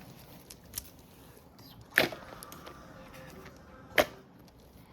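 Sharp clicks of small fidget toys being handled and put into a basket: a faint one a little under a second in, then two sharp ones about two seconds apart.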